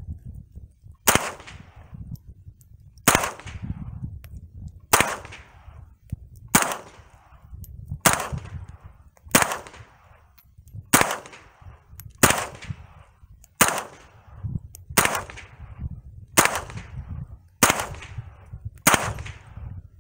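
Smith & Wesson M&P 15-22 semi-automatic .22 LR rifle firing CCI Mini Mag rounds one at a time: thirteen sharp shots about one to two seconds apart, each trailing off briefly. Every round fires and cycles with no failure to fire. Wind rumbles on the microphone between shots.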